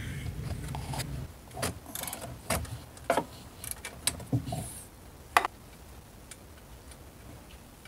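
Irregular sharp clicks and light knocks of hand work on an alternator's power-wire terminal and the hoses beside it in an engine bay, the loudest click near the end, then it goes quiet.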